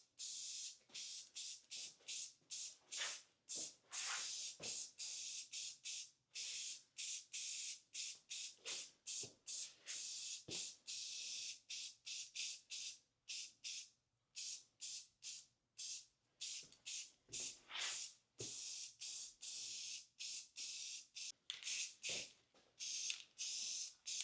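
Spray paint being sprayed onto the top of a wooden stand in a long run of short hissing bursts, about two a second.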